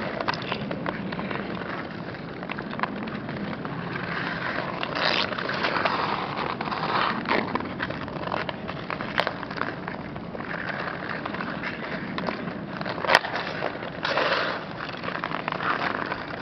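Hockey skate blades scraping and carving on pond ice, with hockey sticks clacking; a sharp crack of stick on puck about three-quarters of the way through is the loudest sound.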